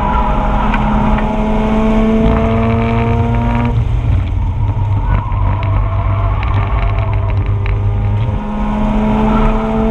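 2004 Mazda RX-8's two-rotor rotary engine pulling hard, its pitch rising until it lifts off about four seconds in. It then runs at lower, steadier revs and climbs again under throttle near the end.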